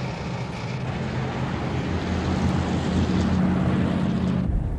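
Steady low engine drone with a layer of hiss, its sound changing abruptly near the end.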